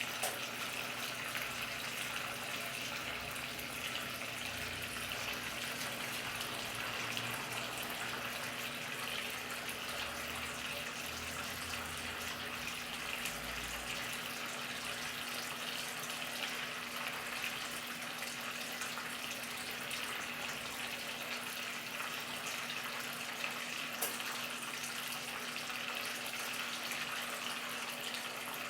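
Washing machine draining its wash water before the spin cycle: a steady rush of water with a constant low hum.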